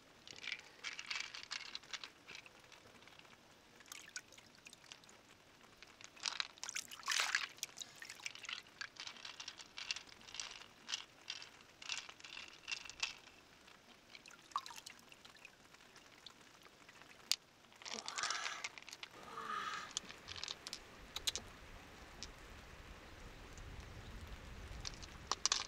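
Water pouring and trickling, with irregular small clicks and splashes.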